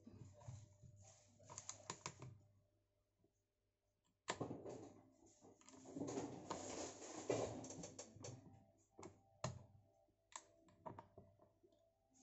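Faint handling of a USAMS tablet holder: small plastic clicks and rubbing as the iPad is turned and pushed in the holder's clamp and pivot. The clicks are scattered, stop briefly, then come in a denser run with rubbing before thinning out again.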